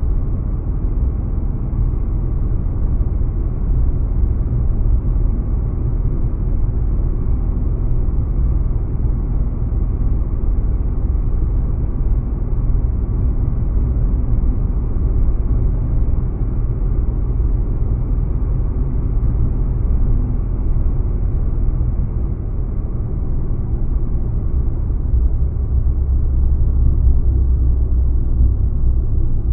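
A car being driven, giving a steady low road and engine rumble with no distinct events. The low rumble swells slightly near the end.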